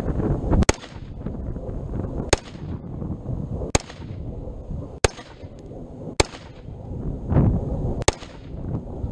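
Springfield Saint Edge AR-15 rifle firing 5.56 rounds: six single shots about one to two seconds apart, each a sharp crack with a short echo. Wind rumbles on the microphone between the shots.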